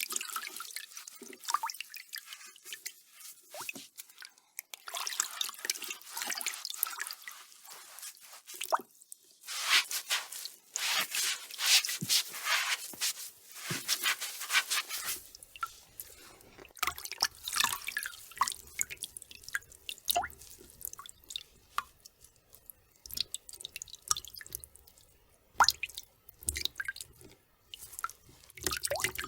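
Wet sponge washing: irregular wet scrubbing and squishing strokes with water dripping, coming in bursts with short pauses between them.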